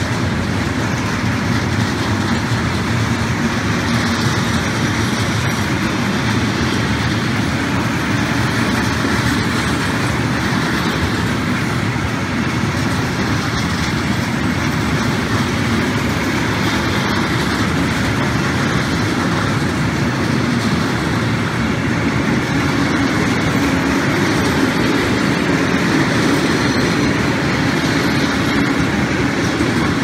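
Loaded coke train of Eas and Ealos open freight wagons rolling past as it departs, a steady noise of steel wheels running over the rails.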